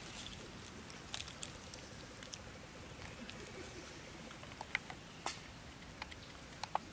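Scattered faint clicks and crackles from a long-tailed macaque handling and chewing food among dry leaves, a few at a time, over a steady hiss and a faint high pulsing tone.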